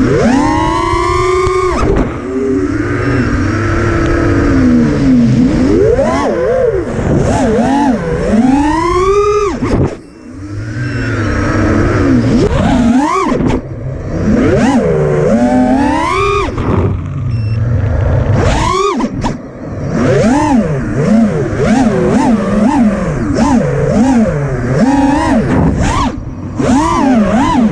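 FPV drone's brushless motors and propellers whining, the pitch sweeping up and down rapidly with the throttle. The sound dips briefly about ten seconds in.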